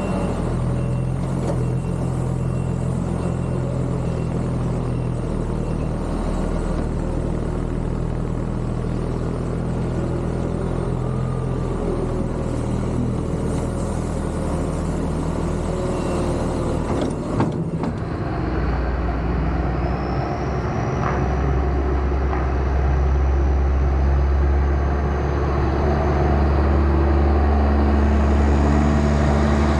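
Heavy diesel farm machinery engine running steadily under load. About two-thirds of the way through the sound changes abruptly to a deeper, louder engine rumble.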